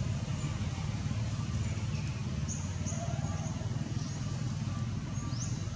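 Steady low rumble with short, high bird chirps every second or so, one rising near the end.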